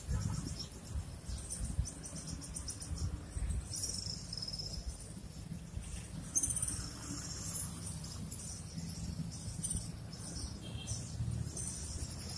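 Insects chirping in repeated high-pitched pulses, over a steady low rumble.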